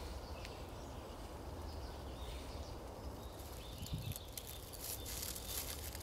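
Outdoor ambience by a ground nest in dry leaf litter: a low steady rumble with faint scattered rustling and clicks, and a soft knock about four seconds in.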